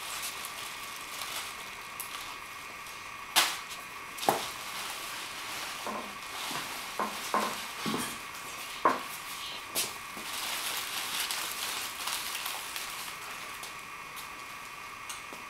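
Rustling and crinkling as costume props are handled, with several sharp clicks and knocks, the loudest about three and a half seconds in, over a steady hiss.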